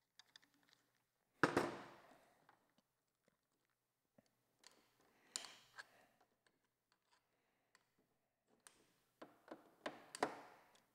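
Scattered clicks and light knocks of motorcycle handlebar controls and fittings being handled on the clip-on, with one sharper knock about a second and a half in and a cluster of clicks near the end.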